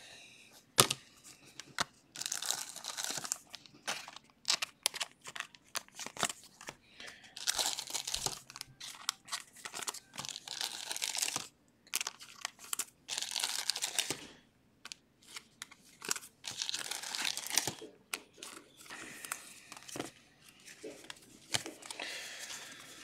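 Trading-card pack wrappers crinkling and tearing open, with cards being handled, in short rustling bursts every second or two.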